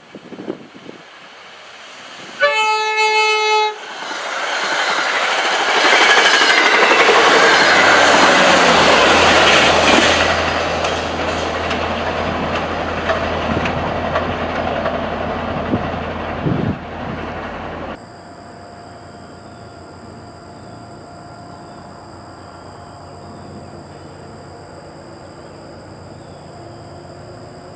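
An MBTA commuter train sounds one horn blast about two seconds in, then rushes past at speed with loud wheel and rail noise that swells and slowly fades. After a sudden drop, a quieter steady hum with a few held tones follows as a diesel locomotive approaches.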